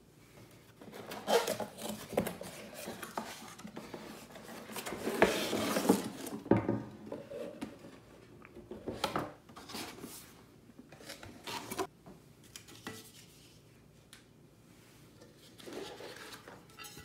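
Cardboard box and packing inserts scraping and rustling as an enamelled cast iron pan is slid out and handled, with several sharp knocks of the heavy pan being set down and turned.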